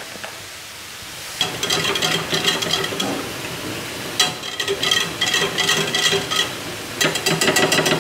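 A utensil stirring fast in a metal saucepan, scraping the pan with a ringing tone: butter and flour being worked into a roux for béchamel. It starts about a second and a half in and is quickest near the end.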